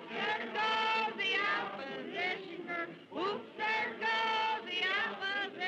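A group of voices singing or chanting together: several high voices hold notes over one another, with a few upward swoops, in short phrases with brief dips between them.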